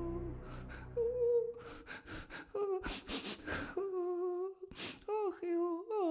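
Soft instrumental music fades out, then a lone voice hums slow, drawn-out notes in short phrases, broken by a couple of heavy sighing breaths, the sound of someone feeling sad.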